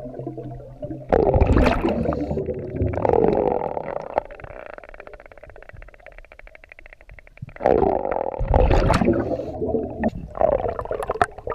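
Scuba diver's breathing through a regulator underwater: two long bursts of exhaled bubbles, about a second in and again near eight seconds, with a quieter stretch between.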